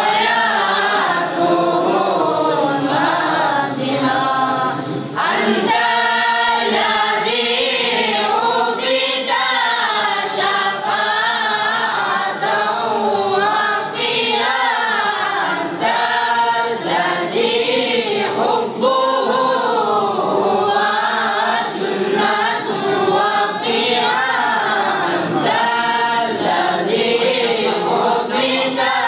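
A group of boys singing a devotional song together without instruments, in long rising and falling phrases with short breaks between them.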